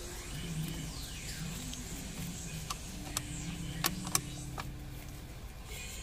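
Screwdriver tightening a Phillips screw into a Nissan Altima's steering-column combination switch (headlamp and wiper switch), with several small sharp clicks in the second half.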